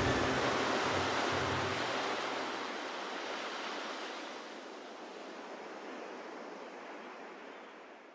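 Steady rushing noise, like surf, fading slowly out. The last held notes of the music die away in the first two seconds.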